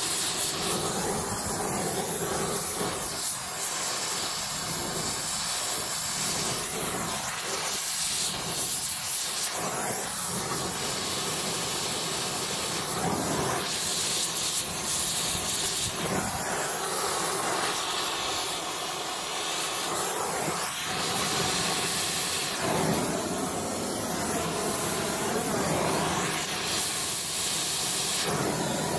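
Gas heating torch flame hissing steadily as it heats a seized bearing collar on a fan shaft that is held under pressure in a hydraulic press. The hiss swells and eases a little as the flame is moved.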